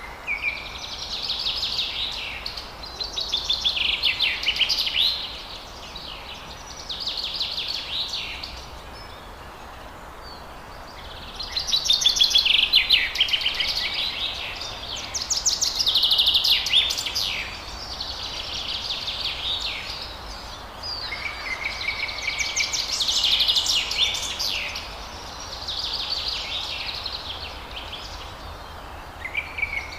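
A songbird singing phrases of rapid high notes, one after another every couple of seconds, with a pause of a few seconds about a third of the way in. A steady low hiss sits under the song.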